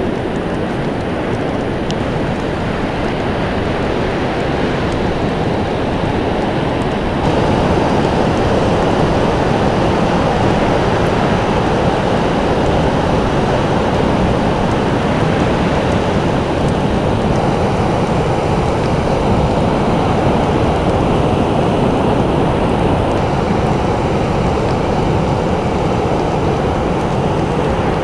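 Ocean surf: a continuous wash of breaking waves, growing a little louder about seven seconds in.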